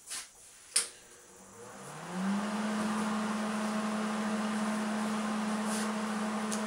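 Two clicks, then a welding machine's cooling fan spinning up: a rising hum that settles about two seconds in into a steady whirring drone as the welder is switched on ready to weld.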